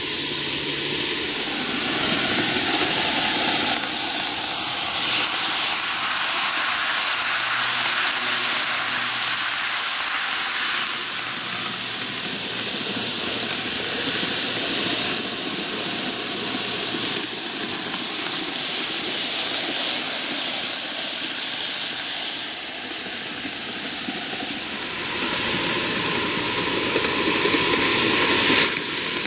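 N-gauge model electric train running on TOMIX canted track: a steady hissing rumble of the motor and wheels on the rails, fading a little as it goes round the far side and growing louder near the end as it comes back toward the camera.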